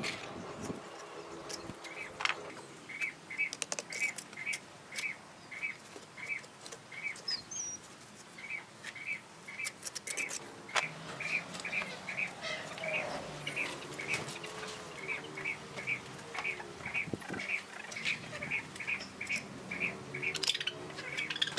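A small bird repeating a short high chirp over and over, about two a second. Scattered sharp clicks and scrapes of a mason's trowel tapping bricks and mortar sound under it.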